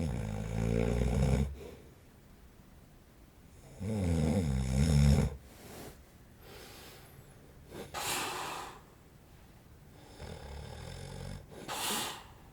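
A man in his forties snoring in his sleep: two loud snores about four seconds apart, then softer snores and noisy breaths.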